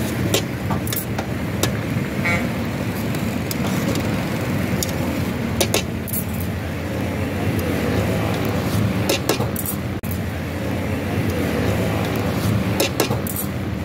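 Metal tongs and steel skewers clink sharply against an aluminium pot now and then as grilled chicken pieces are pulled off the skewers. Under it runs a steady low rumble of road traffic, with a short horn toot a little over two seconds in.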